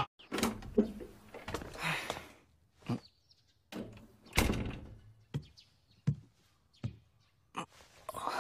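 A series of separate knocks and thuds, about ten, irregularly spaced with quiet gaps between them.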